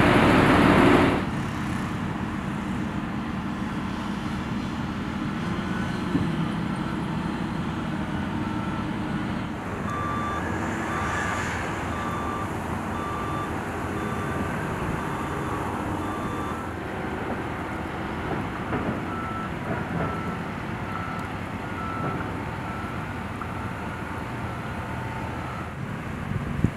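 Construction-site heavy equipment running, with a reversing alarm beeping at an even pace in two spells, about ten seconds in and again near twenty seconds: a machine backing up.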